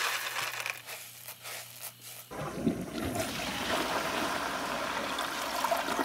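Toilet flushing: about two seconds in, water starts rushing steadily through the bowl. Before it, a few light ticks of candy dropping into the bowl.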